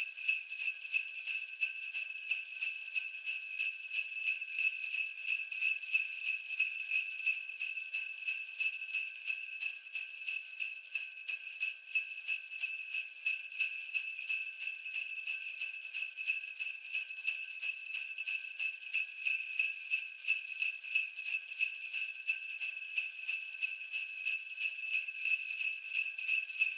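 Sleigh bells shaken continuously in a steady, even rhythm, jingling with a bright, high ring.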